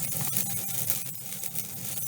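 Rice straw and dried kindling catching fire in a wood-boiler firebox: a dense, rapid crackling over a steady low rumble.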